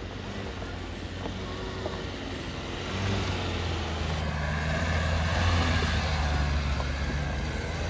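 Dacia Duster's 1.5-litre 115 HP diesel engine pulling at low revs as the SUV climbs a rough dirt track. It is a steady low drone that grows louder about three seconds in.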